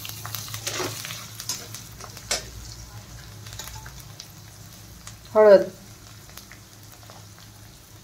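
Chopped onion and coriander frying in oil in a stainless-steel kadhai, stirred with a steel spatula: a light sizzle with scrapes and clicks of metal on metal, most of them in the first few seconds. A steady low hum runs underneath.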